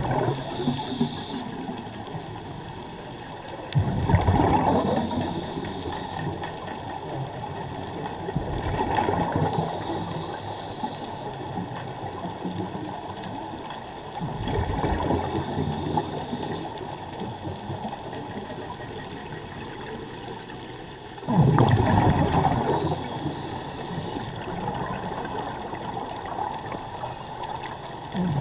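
A scuba diver breathing through a regulator underwater: a rush of exhaled bubbles about every five to seven seconds, four times, each with a short hiss from the regulator.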